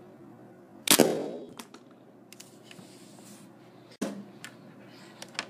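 Buzz Bee flintlock-style spring-plunger dart pistol firing a foam Nerf dart: one sharp snap about a second in, followed by a few light clicks. A second, softer sharp knock comes about four seconds in.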